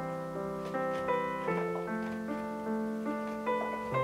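Soft background piano music, a slow melody of single held notes over sustained bass notes.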